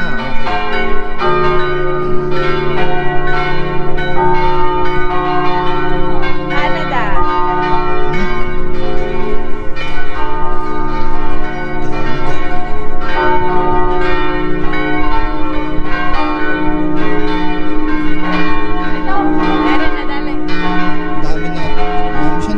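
Church bells ringing loudly, several bells struck over and over so that their tones overlap and hang on.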